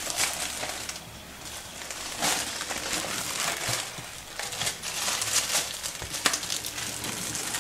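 Wrapping crinkling in irregular bursts as a chilled slab of butter is unwrapped and handled.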